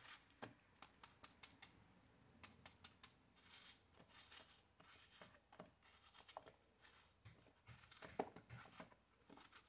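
Faint, irregular crisp clicks of a knife cutting small chunks off a peeled apple held in the hand, the pieces dropping into a bowl.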